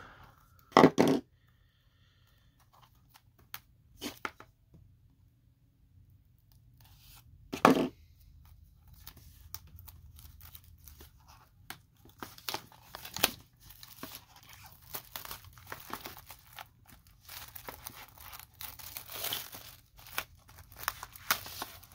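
Plastic shrink wrap on a CD case being slit with a knife and torn open, with sharp tearing sounds about a second in and again near eight seconds. Through the second half the wrap crinkles and crackles almost continuously as it is peeled off by hand.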